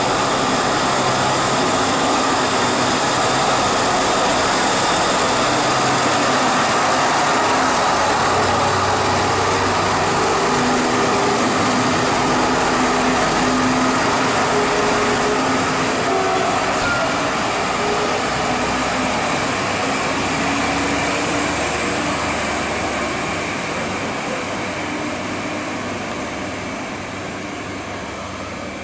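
Class 628-type diesel railcar running under power as it pulls out. The engine note shifts in pitch, and the sound fades steadily over the last dozen seconds as the train moves away.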